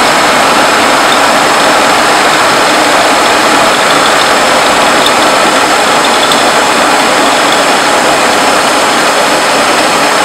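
Conventional milling machine running under load as a rotating friction stir processing tool traverses through an aluminium 5083 plate packed with silicon oxide powder: a loud, steady mechanical noise.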